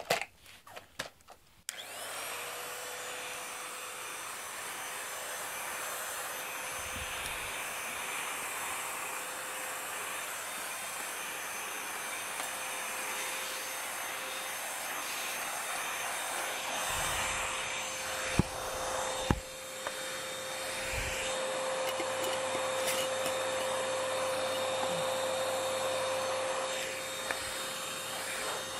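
Stick vacuum cleaner: a few clicks, then the motor switches on about two seconds in and runs steadily with a steady whine while the head is pushed over a rug and carpet. There are two sharp knocks a little past the middle.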